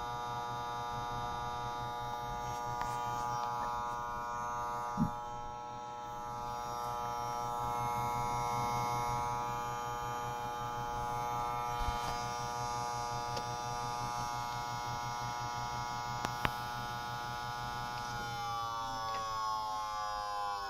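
Desktop PC giving off an abnormally loud, steady buzzing whine with a rapid pulsing underneath. This is a fault noise that the owner has not traced to any of the fans and suspects comes from the CPU area. Two short clicks come about 5 and 16 seconds in, and near the end the whine starts to fall in pitch.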